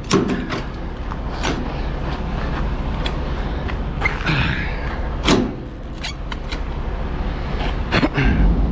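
Semi truck's diesel engine idling as a steady low hum, with scattered clicks and knocks over it.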